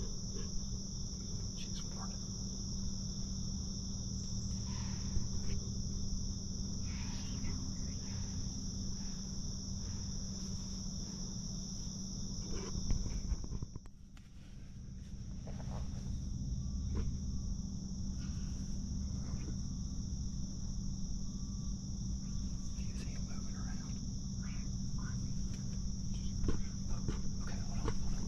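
A steady, high-pitched chorus of insects, with a few faint knocks and rustles. The sound dips out briefly about halfway through, then the chorus returns.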